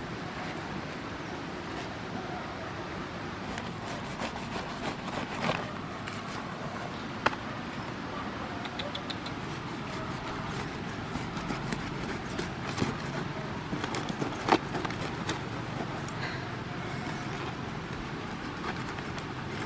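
A knife slicing through the knobbly rind of a whole jackfruit and the fruit being pried open by hand, heard as scattered sharp clicks and crackles over a steady background hiss.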